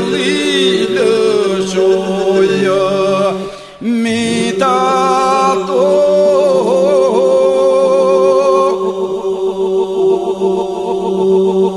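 Albanian sung elegy with no words: a steady drone held low while an ornamented, wavering melody moves above it. The melody breaks off briefly about four seconds in.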